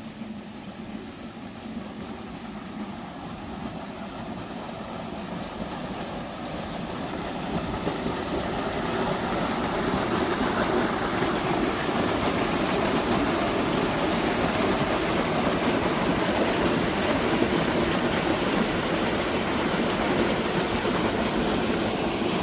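Water running and splashing in a stream, a steady rushing that grows louder over the first ten seconds or so and then holds steady.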